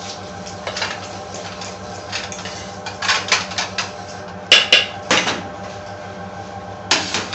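Oil heating in a non-stick frying pan, crackling and popping in irregular clusters of sharp clicks, loudest about four and a half seconds in, over a steady low hum.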